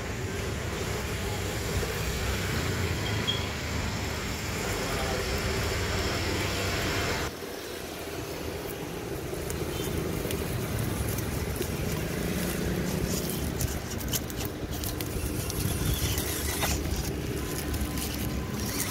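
Small electric RC off-road crawler trucks (MN99S and WPL C24) driving: motor and gearbox whine with tyres crackling over dry leaves and grass. The sound changes abruptly about seven seconds in.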